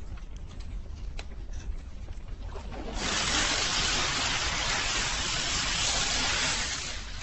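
Hot steel plunged into a barrel of quench water: a loud, even hiss of boiling water and steam that starts suddenly about three seconds in, holds for about four seconds and eases off near the end, over a low steady rumble.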